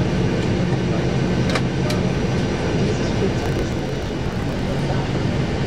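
Steady jet airliner noise, an even rush with a low hum under it. Two faint clicks come about a second and a half in.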